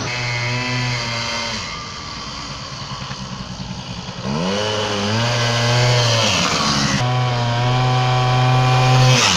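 Water-cooled Honda DIO 50 cc two-stroke scooter engine running. About four seconds in the pitch rises as it accelerates, and it then holds a steady, higher note.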